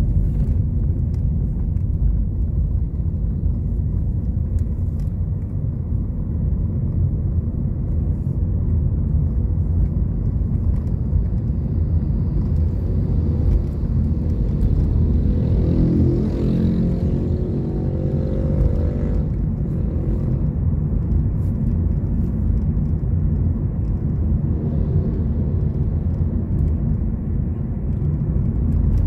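Road and engine rumble heard from inside a moving car, steady and low. Midway a louder engine note swells and fades as another vehicle goes by.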